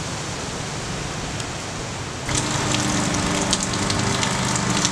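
Steady rain. About two seconds in it gets louder, with many sharp drop ticks close by and the low steady hum of a distant walk-behind lawn mower engine.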